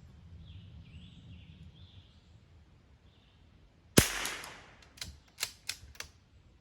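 A single rifle shot about four seconds in, with a short rolling echo, followed by four sharp clicks over the next second and a half.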